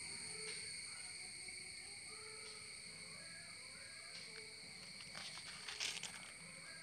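Faint, steady high-pitched drone of insects, with a short burst of clicks and rustling about five to six seconds in.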